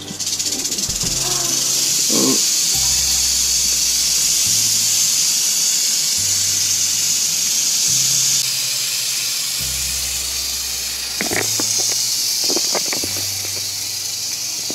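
Rattlesnake restrained in a clear tube, buzzing its tail rattle in a continuous high hiss, its defensive warning. A few short clicks sound about three-quarters of the way through.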